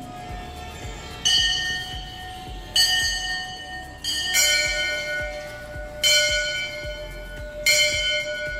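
Brass temple bell struck five times, about every one and a half seconds, each ring left to fade into the next; the last three strikes are lower in pitch than the first two.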